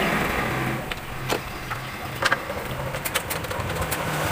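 Scattered sharp metallic clicks and clinks of a T-handle socket wrench working the bolts of an engine's exhaust heat shield. They start about a second in and come most often in the second half, over a low steady hum.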